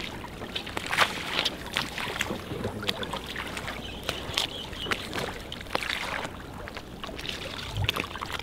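Small waves lapping and slapping against the hull of a small boat on choppy water, a steady wash broken by irregular short splashes. There is a dull low bump near the end.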